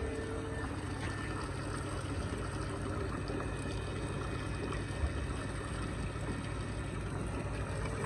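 Tap water pouring in a steady stream into a metal bucket, splashing and drumming as the bucket fills.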